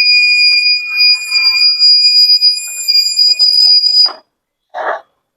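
Witblox robotics kit's electronic buzzer sounding the anti-theft alarm as one steady high-pitched tone, cutting off suddenly about four seconds in. Two short knocks follow.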